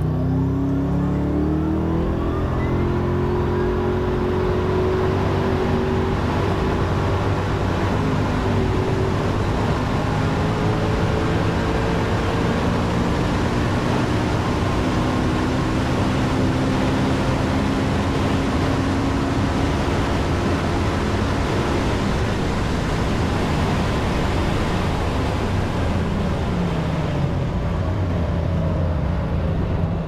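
Hypercar accelerating flat out from a standstill, heard from onboard: a rising drive note over the first few seconds, then a long, loud run at very high speed under heavy wind and road noise. The pitch falls near the end as the car slows.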